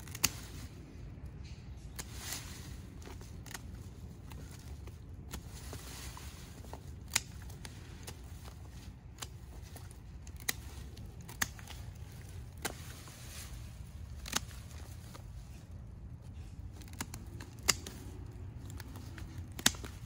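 Gloved hands scrabbling and rustling through loose potting soil in a plastic pot, digging out sweet potatoes, with a dozen or so sharp clicks scattered through and a low steady rumble underneath.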